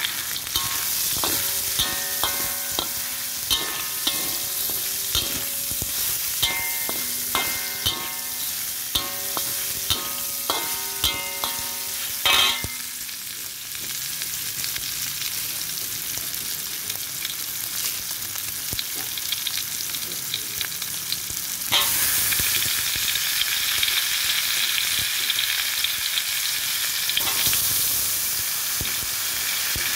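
Chicken pieces sizzling as they are stir-fried in a stainless steel pan, with a metal spatula scraping and knocking against the pan. The knocks ring during the first dozen seconds. About 22 s in, the sizzle suddenly gets louder as the vegetables go into the hot pan.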